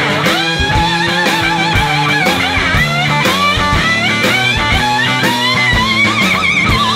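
Rock music soundtrack: a lead guitar plays a wavering melody with bends and vibrato over bass and a steady drum beat.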